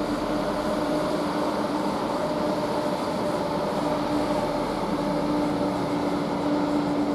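Diesel train engine running steadily at idle: a constant hum with one strong low tone over a broad rumble.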